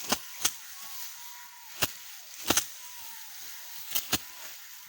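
Sharp clicks or snaps at irregular intervals, about six of them with a close pair near the end, over a faint hiss with thin, faint whistling chirps.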